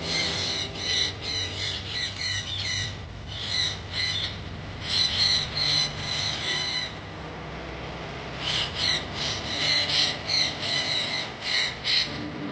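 Birds squawking in runs of short, harsh, repeated calls, about three or four a second, with a pause of a second or so about two-thirds of the way through.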